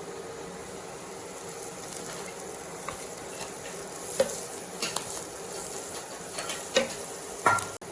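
A vegetable filling sizzling in a pan on the stove as it is stirred, with a steady hiss and a few sharp knocks of the stirring utensil against the pan, the loudest near the end.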